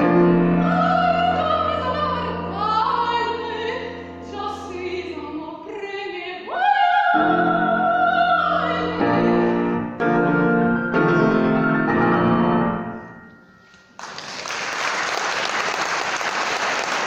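Operatic soprano singing the closing phrase of an aria with piano accompaniment, rising to a long held high note midway while the piano plays chords beneath. The music dies away about 13 seconds in, and the audience breaks into applause near the end.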